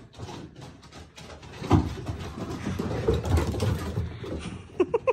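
Two dogs, a German Shepherd and a Bernedoodle puppy, playing chase on a wooden deck: quick irregular paw thuds and claw scrabbling on the deck boards, with a heavy thump a little under two seconds in.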